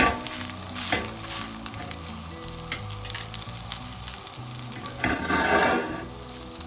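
Pesarattu (green gram dosa) sizzling on a hot griddle, with a few sharp spatula scrapes and clicks as it is turned over. About five seconds in there is a loud burst of sizzling that lasts about a second.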